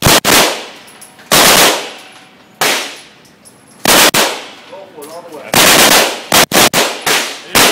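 Series of loud gunshots on an indoor shooting range, each ringing off the range walls. They come about one every second and a bit, with three shots in quick succession near the end.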